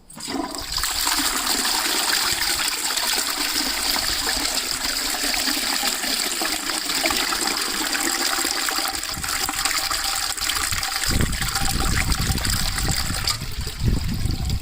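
A 1990s Qualitas Charlotte close-coupled toilet, the 7.5-litre cistern version, flushing: water rushes into the bowl all at once and runs steadily. About 11 s in, a deep gurgling joins it as the bowl empties through the trap and the siphon breaks, and near the end the rush eases off. The bowl clears despite the narrow trap bend.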